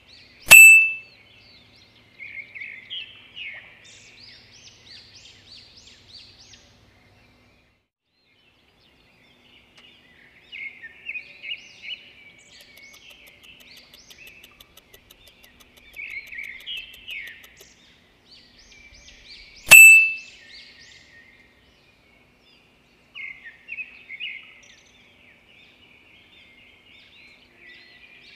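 Birdsong ambience: small birds singing in repeated chirping, twittering phrases, with a few short pauses. Two loud, sharp dings ring out and fade within about a second, one just after the start and one about two-thirds of the way through.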